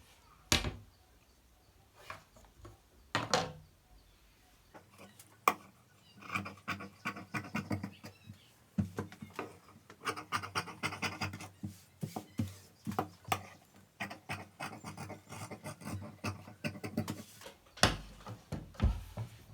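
Marking lines drawn on fabric laid on a cutting table: a few separate knocks in the first few seconds, then a long run of quick scratching strokes that stops shortly before the end.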